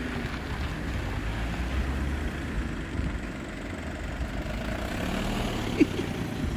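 Audi A2 cars in a slow-moving convoy, their engines running steadily with road noise. A brief sharp sound stands out near the end.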